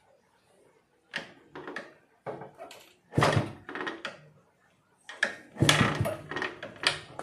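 A 1988 Yezdi D250 Classic being kick-started: repeated clunks and clatter as the combined gear/kick-start lever is kicked and the 250 cc two-stroke engine turns over. The two loudest kicks come about three seconds in and near six seconds. The engine does not settle into running.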